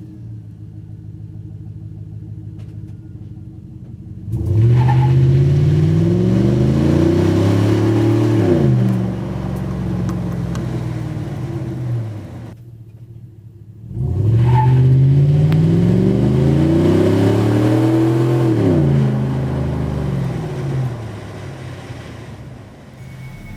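2010 Chevy Silverado 1500 with a DynoMax cat-back exhaust system, accelerating hard twice: each time the exhaust note climbs for about four seconds, then drops at an upshift and settles. Between the two pulls, and near the end, it runs more quietly.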